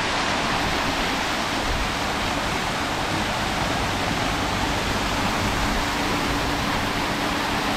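Steady rush of water pouring over an artificial rock waterfall.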